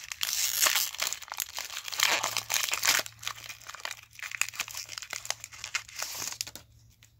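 Foil wrapper of a Pokémon TCG booster pack being torn open and crinkled by hand: dense, loud crinkling for about the first three seconds, then lighter scattered rustling that dies away near the end.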